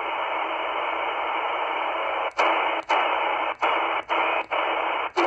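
XHDATA D-808 shortwave receiver hissing with band noise in upper sideband, no voice on frequency. About two seconds in, the tuning starts stepping in 1 kHz steps, and the audio drops out with a click at each step, about six times in three seconds.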